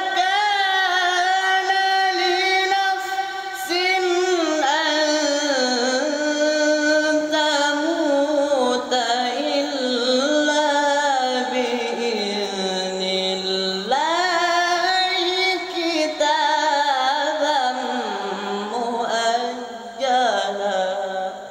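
A teenage boy's voice reciting the Quran in melodic tilawah style into a handheld microphone: one long ornamented phrase with wavering melismas, sinking to a long low note about two-thirds through, then climbing sharply again and ending near the end. His voice has changed with adolescence and is only starting to settle.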